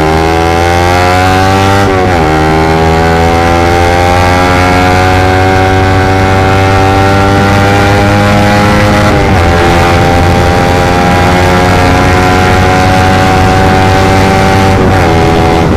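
Suzuki GSX 150 single-cylinder engine through a short Pro Liner aftermarket exhaust, accelerating hard. The engine note climbs steadily in each gear and drops at upshifts about two seconds in, about nine seconds in, and near the end. The rider finds the pull with this exhaust weak and slow to build.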